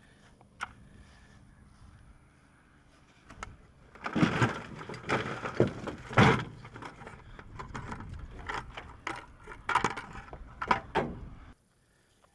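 A magnet-fishing rope and magnet being hauled in, with irregular scraping and clanking knocks that start about four seconds in and cut off suddenly near the end.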